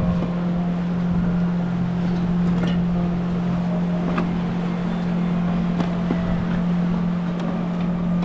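Steady rush of river water and wind on the microphone, under background music holding one steady low note.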